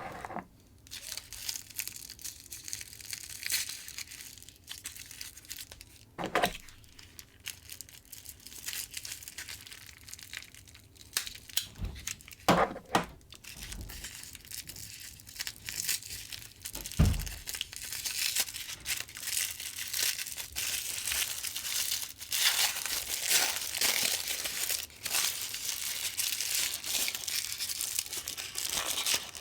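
Packaging crinkling and tearing while an action figure is unboxed, with a few knocks, the loudest about 17 seconds in. The crinkling grows denser and busier near the end.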